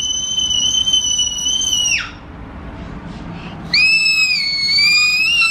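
A toddler squealing in two long, very high-pitched held notes, each ending in a quick drop in pitch. The second squeal starts about three and a half seconds in.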